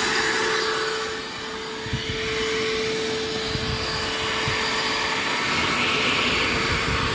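Shop vacuum running steadily, a level motor whine over a rush of air.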